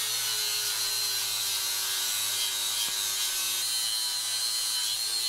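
Electric grinder running steadily with a high whine and grinding hiss, cutting metal off the rear brake caliper to clear the wheel, which has been rubbing on it. The motor's pitch sags a little as it bites and drops a step about three and a half seconds in.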